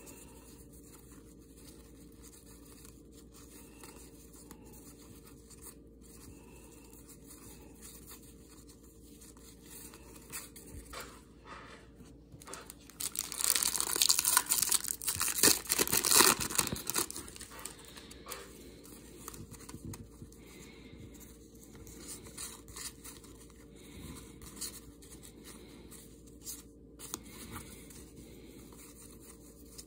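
Foil wrapper of a trading-card pack being torn open and crinkled, a loud crackling stretch of a few seconds about halfway through. Before and after it, quieter rustling of cards being handled and flipped.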